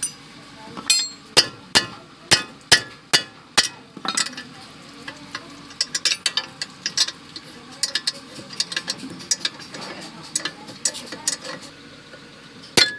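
Hammer blows on metal, about two or three a second for the first few seconds, then lighter metallic taps and clinks, as in knocking out parts during a wheel bearing replacement.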